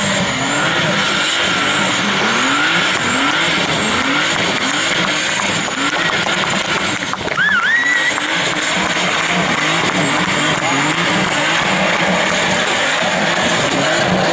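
BMW E34 5 Series doing a burnout: the rear tyres squeal with a wavering high screech while the engine revs hard in repeated rising surges. About halfway through, a short rising whistle cuts through the noise.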